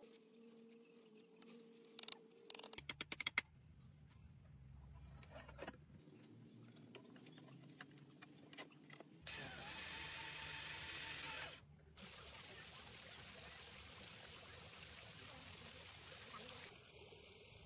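A few sharp clicks and knocks about two to three seconds in, then a steady rush of running water through the second half.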